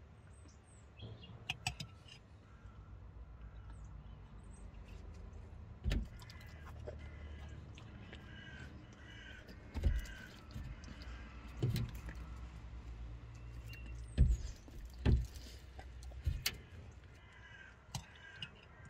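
Crows cawing repeatedly in the background, with a low steady rumble underneath. Several sudden dull thumps come through more loudly, most of them between about six and seventeen seconds in.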